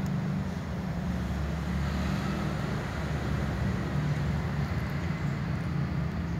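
Steady low rumble that neither rises nor falls, with no clear meowing in it.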